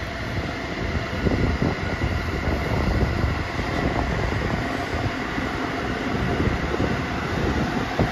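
A train running past at close range, its wheels clattering over the rails with a faint steady whine above.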